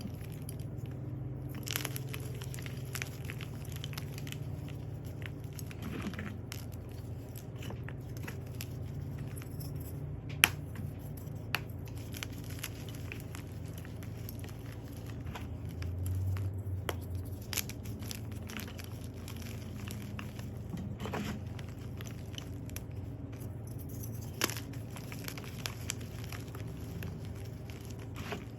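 Crunchy dyed gym chalk being crushed and crumbled, a run of irregular crackles and crunches with a few sharper cracks, the loudest about ten seconds in. A steady low hum runs underneath.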